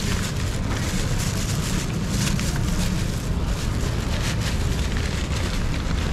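Crinkling and rustling of the wrapping as a wrapped piece of grilled tuna is opened by hand, over a steady low rumble of outdoor wind or traffic noise.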